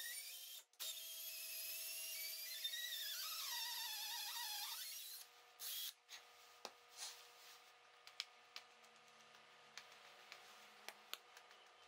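Stanley 18V cordless drill turning a wooden dowel through a wood-threading jig, its motor whine rising and falling in pitch with the trigger, then stopping about five seconds in. Afterwards a few short rustles and light clicks and taps as the drill and work are handled.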